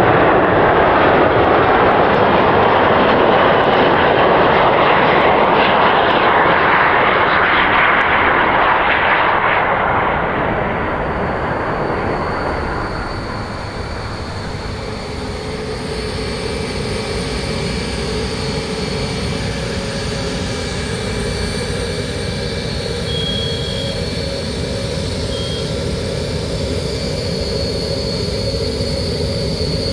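Lockheed L-1011 TriStar's turbofan engines as a loud, steady jet noise on approach, fading away between ten and thirteen seconds in. It gives way to a quieter steady running sound with a few thin, steady whines as a tow tractor pulls the jet across the ramp.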